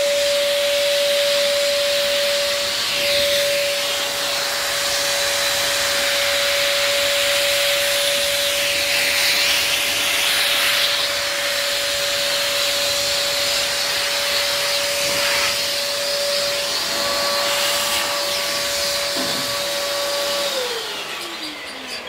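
Blower motor running steadily with a high whine and a rush of air, blowing husks and dust off bird seed. Near the end it is switched off and its whine falls away as it winds down.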